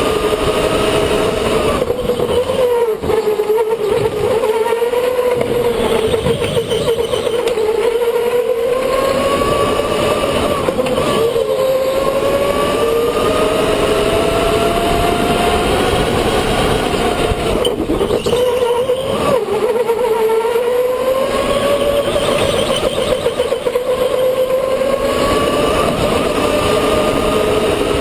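Electric go-kart's motor whining while driven, its pitch rising and falling with speed and dropping low twice as it slows, over steady driving noise.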